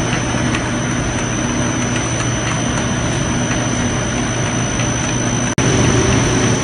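Round sling manufacturing machinery running: a steady mechanical hum and rush with a thin high whine, broken by a split-second gap about five and a half seconds in.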